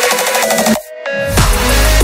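Electronic dance music with a rising synth line that breaks off briefly about a second in, then comes back with heavy bass and a beat.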